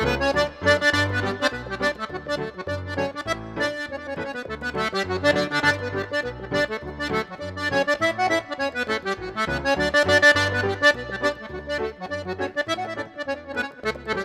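Piano accordion playing a French Canadian reel melody, with piano accompaniment keeping steady, evenly repeating bass notes underneath.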